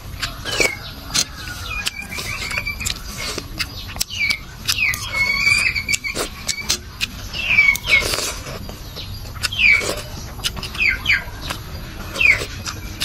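Rice porridge being spooned up and slurped, with small clicks and a few louder slurps, under short high falling chirps from an animal that come every second or so.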